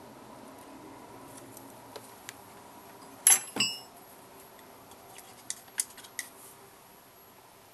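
Small metal jeweler's tools clinking against the bench: a few light ticks, one loud clatter with a brief metallic ring a little over three seconds in, then several sharp clicks.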